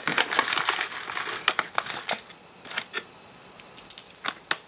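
Foil-lined plastic candy bag crinkling as it is handled and tipped for about two seconds, then sparse clicks and short rustles as candy-coated Reese's Pieces are shaken out into a hand.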